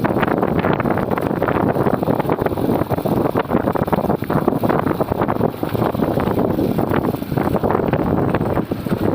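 Loud, continuous wind buffeting on the microphone, with the rumble of a moving Bajaj Platina motorcycle beneath it.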